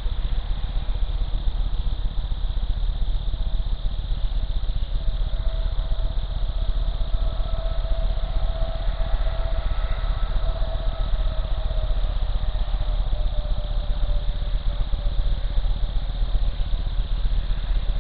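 Steady low electrical buzz from a Bushnell trail camera's own audio circuit, with a faint steady tone that swells and fades around the middle.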